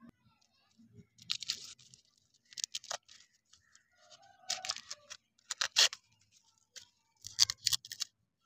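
Candy wrapper being torn open and crinkled by hand in several short crackly bursts as a lollipop is unwrapped.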